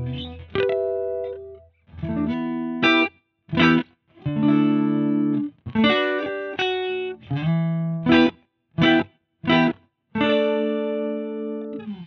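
Electric guitar playing chords through a TC Electronic Mimiq Mini doubler pedal, in a stop-start rhythm: a few chords held for a second or so, several short choppy stabs, and a last chord left ringing near the end.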